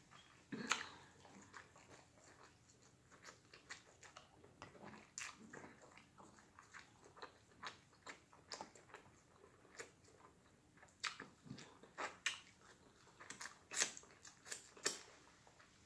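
A person chewing a mouthful of burger close to the microphone: quiet, irregular wet mouth clicks and smacks, with a few louder ones.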